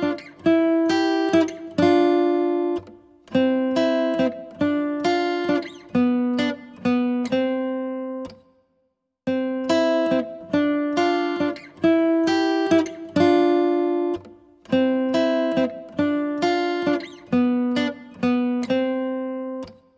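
Background music on acoustic guitar, with plucked notes and chords that each ring and die away. The music stops for about a second roughly eight seconds in, then the phrase starts over.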